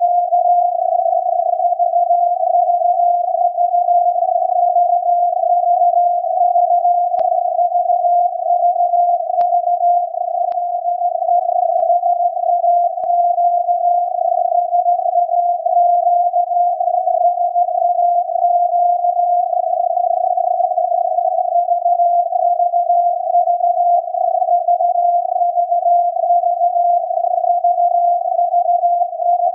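The 17.2 kHz VLF Morse transmission from SAQ's Alexanderson alternator, received on a software-defined radio and turned into a steady tone of about 700 Hz. The tone sits inside a narrow band of filtered radio hiss.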